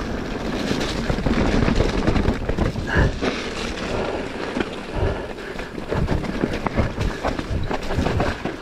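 Mountain bike descending a rough dirt trail at speed: steady wind and tyre noise with frequent rattles and knocks from the bike over roots and stones.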